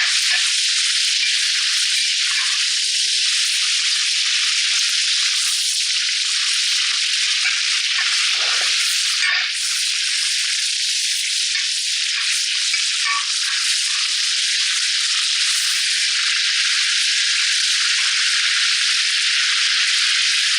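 Amra (hog plums) frying in hot mustard oil in a pan, a steady loud sizzle throughout.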